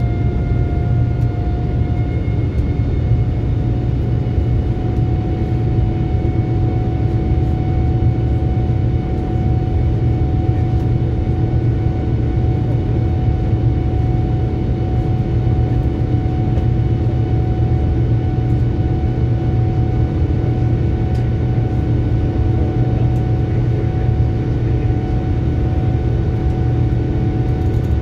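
Boeing 787-9 cabin noise heard from a window seat during the climb after takeoff: a steady, loud rumble of the engines and airflow with a steady whine over it. The whine steps up slightly in pitch about two seconds in.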